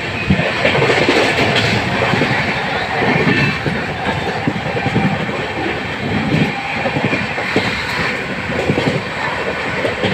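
Amrit Bharat Express passenger coach running at high speed, heard from the coach window: a steady rush of wheel and air noise, with wheels clicking and knocking over rail joints throughout.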